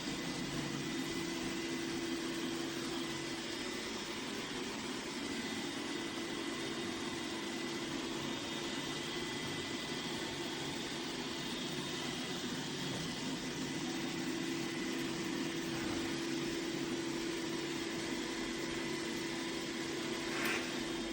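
Dreame X50 Ultra robot vacuum running with its suction fan on: a steady whir with a constant low hum and a thin high tone, and one brief tick near the end.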